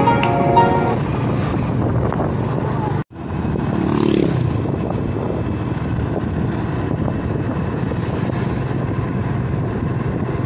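Background music fading out in the first second, then, after a brief cut about three seconds in, a small motorcycle's engine running steadily under way, with wind and road noise.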